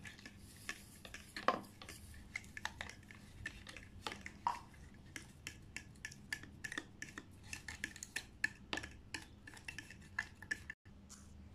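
Metal fork beating eggs and sugar in a bowl: a quick, irregular run of light clinks and scrapes of the tines against the bowl.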